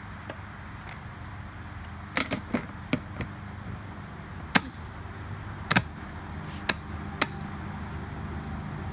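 A series of sharp clicks and knocks, a quick cluster a couple of seconds in and then four single ones a second or so apart, over a steady low hum.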